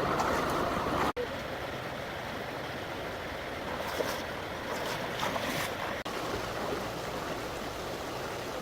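Steady rush of flowing stream water with a few small splashes, cut by two very brief dropouts.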